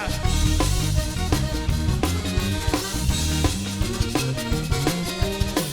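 Live band playing an upbeat instrumental passage, with a driving drum kit, bass and horns or keyboards on a steady beat.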